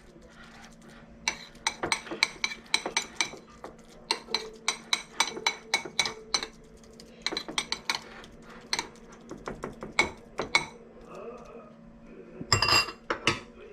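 Metal cutlery clinking and tapping against a dish in quick runs of ringing taps with short pauses, with a louder clatter near the end.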